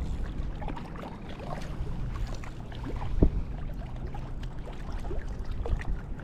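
Wind buffeting the microphone with a steady low rumble, with scattered small clicks and knocks and one sharper click about three seconds in.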